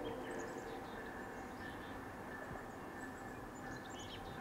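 Lull between blasts of an approaching freight locomotive's horn. The tail of the last blast dies away in the first half second, leaving a faint steady background with a few short, high chirps.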